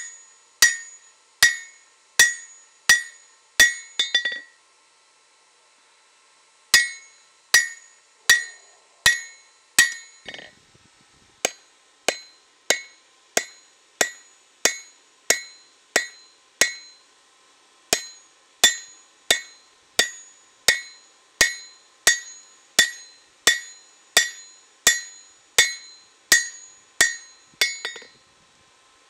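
Hand forging hammer striking red-hot leaf-spring steel on an anvil at a steady pace of about three blows every two seconds, each blow ringing brightly off the anvil. The hammering stops for about two seconds after the first few blows, then resumes.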